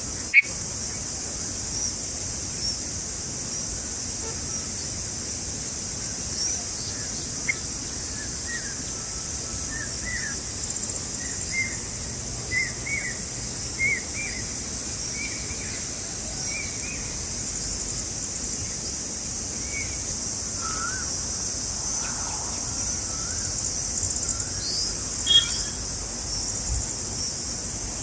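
Steady high-pitched insect drone, with a run of short, repeated bird chirps in the middle and a few more calls near the end. A sharp click comes right at the start.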